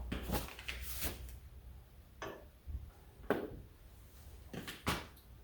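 A handful of scattered short clicks and knocks from tools and wheel parts being handled on a workbench.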